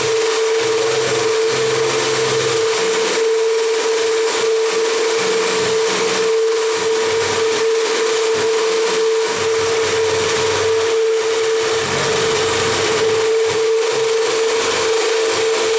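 Small 1 kV petrol generator running steadily after its repair, a constant hum with a strong steady high tone.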